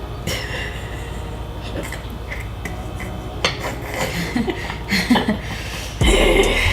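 Kitchen utensils clicking and scraping against a bowl and dish while melted wafer coating is poured and spread over a Rice Krispies treat, with a louder stretch near the end.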